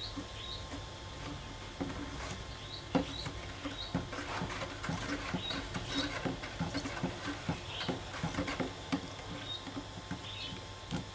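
Water splashing and sloshing irregularly in a plastic jug as a rusty knife blade is swished back and forth in it.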